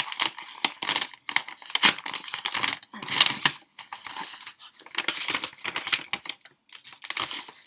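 A mailing bag being torn open and crinkled by hand: a run of irregular rustling, ripping bursts.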